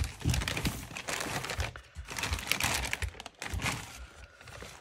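Plastic mailer bag rustling and crinkling as it is handled, in bursts with short breaks.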